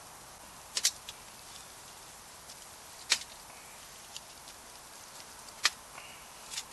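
Wood fire burning with a faint steady hiss and a sharp crackling pop every two or three seconds, four in all.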